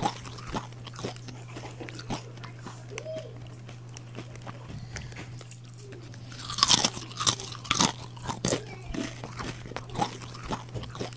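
Crunching and chewing of dry Mamee Monster instant noodle snack, in many sharp crunches, loudest in a run about six to eight and a half seconds in. A steady low hum runs underneath.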